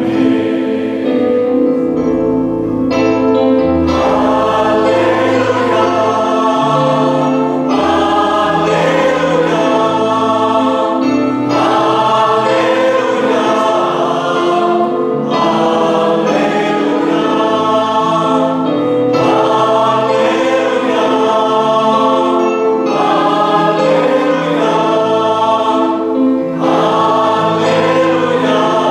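A choir singing a slow hymn in sustained chords, phrase after phrase, with brief breaks about every four seconds.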